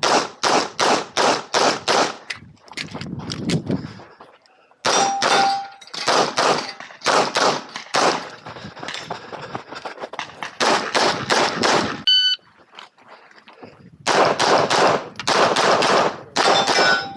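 Glock 26X 9mm pistol fired in fast strings of shots, broken by short pauses. A brief beep sounds about twelve seconds in.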